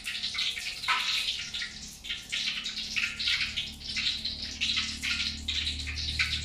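Tofu frying in hot oil: a steady sizzle with irregular crackling and spitting. A low hum comes in near the end.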